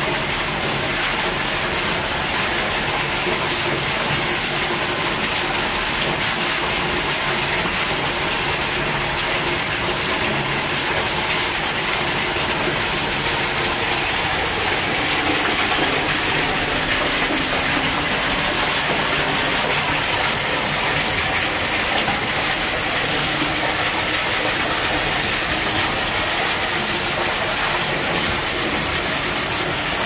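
Thin waterfall pouring down a rock wall and splashing into a pool: a steady, even rush of falling water.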